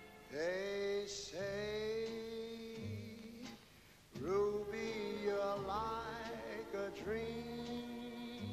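Wordless singing voice in the film score: several long held notes, each sliding up into its pitch, with a short break about four seconds in.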